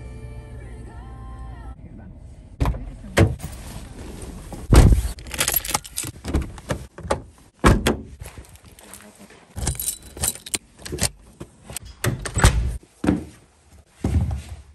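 A run of sharp clicks, knocks and rattles from a car door and keys being handled, with keys jangling and a few louder thumps.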